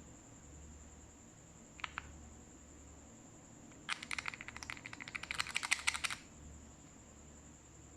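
Slime being squeezed and worked by hand, giving a quick run of sticky, crackling pops and clicks for about two seconds, after a pair of single clicks earlier on.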